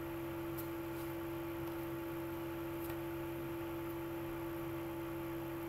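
Steady electrical hum: a constant mid-pitched tone over a lower buzz, with a few faint ticks.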